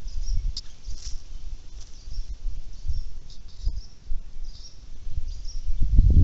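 Outdoor ambience: wind rumbling on the microphone, louder near the end, with short high chirps repeating about once a second.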